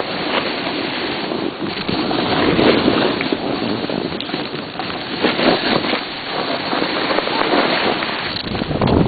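Wind rushing and buffeting across the microphone, loud and uneven, surging now and then.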